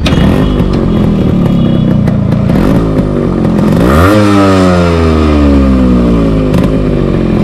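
Yamaha RX100's single-cylinder two-stroke engine running, its revs climbing sharply about four seconds in and then falling away slowly.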